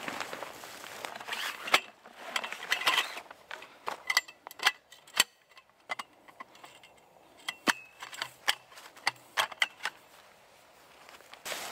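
Rustling of tent canvas at first, then the sections of a sectional tent pole being fitted and knocked together: a string of sharp clicks and clacks with short pauses between them.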